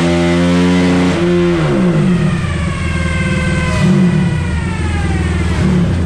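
Modified Honda TRX450R quad's single-cylinder four-stroke engine revving hard until about a second in, then the throttle snaps shut and it winds down with a falling whine over several seconds, settling to a low, steady idle.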